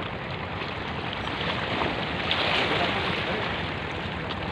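Steady wind noise and sea waves washing against a rock breakwater, with a swell of surf noise about two and a half seconds in.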